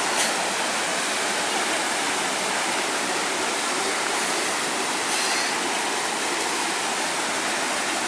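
Steady rush of a mountain stream's waterfall, water pouring and splashing over boulders and logs.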